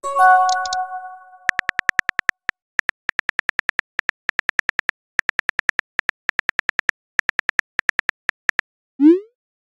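Chat-app sound effects. A short chime of several tones rings out and dies away over about a second as a message posts. Then come runs of quick keyboard tap clicks, about ten a second, as the next message is typed, and a brief rising whoosh near the end as it is sent.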